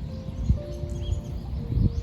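Soft meditative background music of long held tones, in the manner of a 528 Hz healing-frequency track, over a low rumble of sea and waves. A faint bird chirp comes about a second in.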